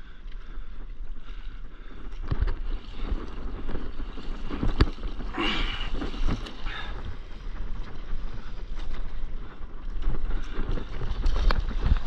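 Stand-up paddleboard paddling into and riding an ocean wave: repeated paddle strokes and water splashing and rushing along the board. Wind buffets the microphone, growing stronger near the end.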